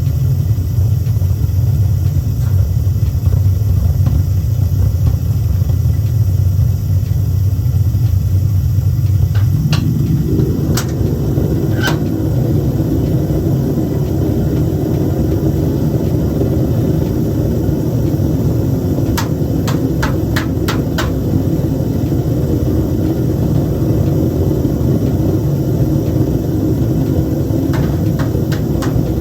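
Home-made metal-melting furnace running with a loud, steady rumble. About ten seconds in, its sound changes and takes on a higher, fuller tone. Sharp metallic clicks come a few times, including a quick run of about six in the middle.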